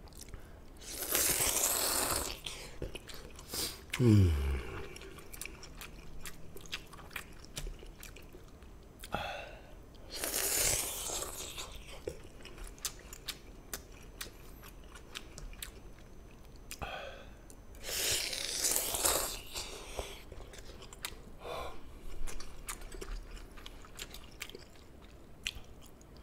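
Eating jjamppong noodles close to a microphone: three long slurps of noodles, about a second, ten seconds and eighteen seconds in, with chewing and small wet clicks between them. A short low sound falling in pitch comes about four seconds in.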